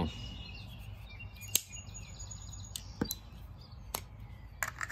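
Four sharp clicks and taps of a knife being handled against its rigid Kydex sheath, spread a second or so apart. Faint bird chirps can be heard behind them.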